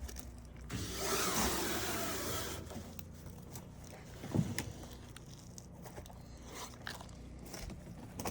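A loud rushing noise for about two seconds near the start, then a few scattered footsteps, the strongest about four seconds in.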